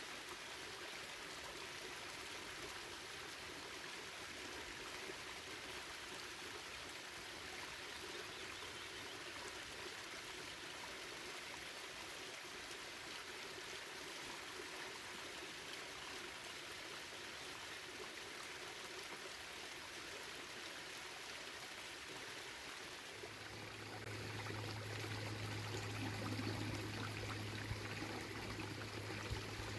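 Bayehon stream rushing over its waterfall, a steady water noise. About three-quarters of the way through it grows louder and a low steady rumble joins in.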